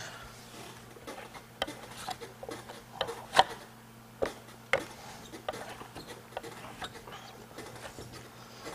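Venetian plaster trowel scraping and clicking against a board as plaster is spread in short strokes: irregular ticks and scrapes, the loudest about three and a half seconds in, thinning out in the second half.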